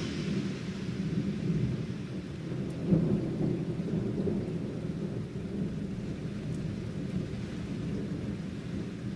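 Thunder rumbling over steady rain, heard from indoors through a window, with a louder swell about three seconds in.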